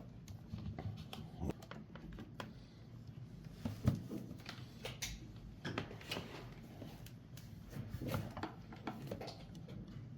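Faint handling noise: scattered light clicks and rustles as the power strip's cable is unwound and handled.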